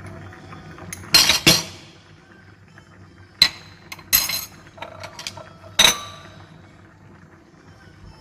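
Kitchen utensil clinking against cookware while ingredients go into the soup pot: five sharp clinks spread over several seconds, the first two close together.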